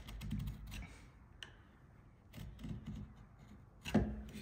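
A wood chisel's edge, used as a knife against a try square, scoring a line across softwood in short scratchy strokes, with a sharper click near the end. The scored line gives the saw a guide for a trenching cut.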